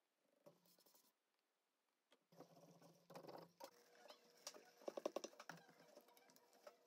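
Faint crinkling and rustling of a plastic zip-top freezer bag being handled and set into a plastic tub, with small clicks and crackles, loudest about five seconds in.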